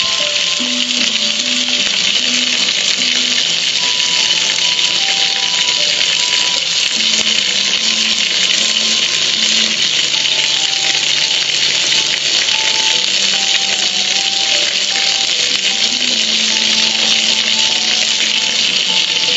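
Steady hiss of water pouring and splashing over a gas grill, with a quiet simple tune playing underneath.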